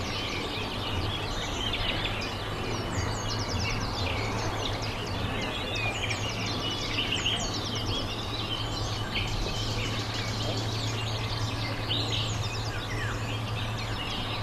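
Many small birds chirping and twittering without pause, over a steady low hum of background noise.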